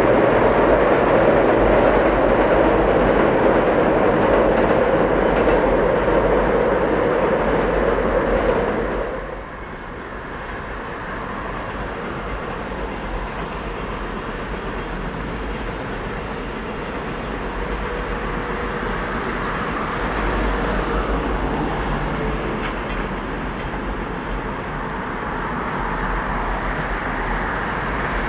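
Trains crossing a steel girder railway bridge: an electric passenger train is loud for about nine seconds, then its sound drops off suddenly. A freight train of container wagons behind an electric locomotive follows with a steady rumble that grows a little louder towards the end.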